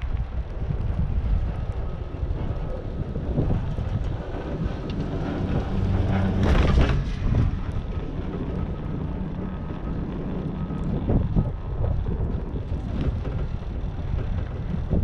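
Wind buffeting the microphone on a moving chairlift, a steady low rumble with a faint steady whine underneath and one louder gust about six and a half seconds in.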